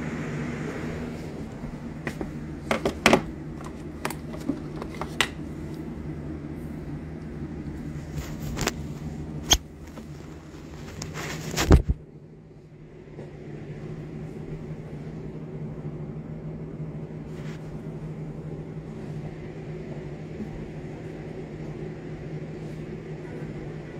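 Handling noise from a phone's microphone: a series of sharp knocks and taps for about the first twelve seconds, ending in a louder bump as the phone is set down. A steady low hum runs underneath throughout.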